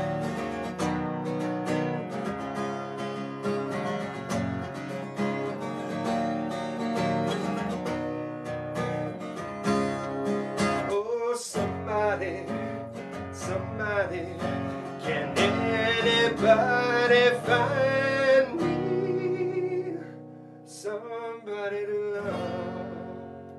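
Acoustic guitar strummed with a man singing along. Near the end the playing thins out to a last strummed chord that rings and fades as the song finishes.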